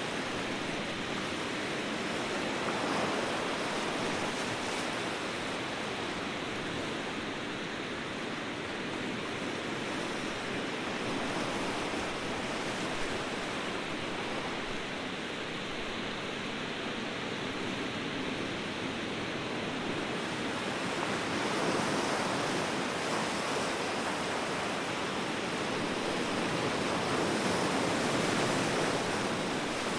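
Ocean waves washing on the shore in a steady rushing wash, swelling a little louder a few times as bigger waves break.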